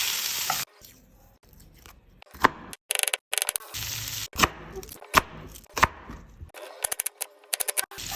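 A quick-cut series of kitchen cooking sounds: a short loud hissing stretch at the start, then scattered sharp knocks and bursts of rapid clicking.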